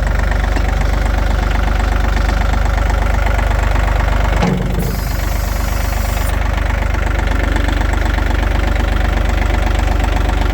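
Vehicle engine idling steadily with an even pulse, just after being started. There is a thump about four and a half seconds in, followed by a brief high hiss.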